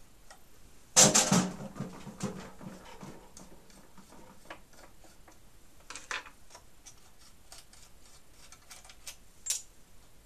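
Hand tools and a switch panel being handled on a lathe: a loud clatter about a second in, then scattered light clicks and taps as the panel is worked loose.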